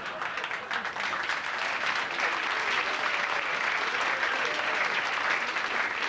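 Comedy club audience applauding a punchline, many hands clapping, the clapping building up about a second in.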